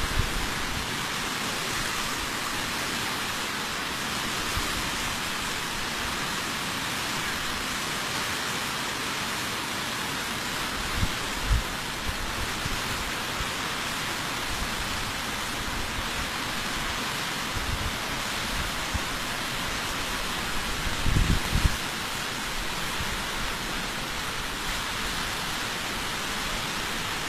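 Steady, even rush of water from a muddy flood torrent swollen by heavy rain. Brief low thumps come twice, about eleven and twenty-one seconds in.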